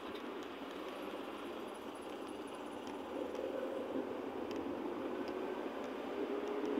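Cabin noise of a moving car: a steady rush of engine and road noise that grows a little louder about three seconds in, with a faint steady hum.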